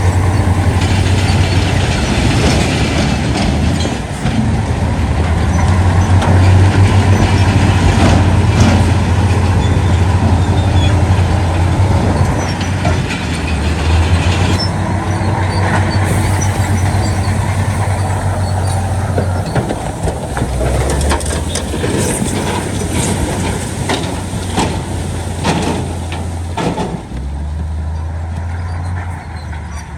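Diesel engines of heavy earthmoving machinery running with a deep, steady drone, with sharp metallic clanks and knocks that come more often in the second half.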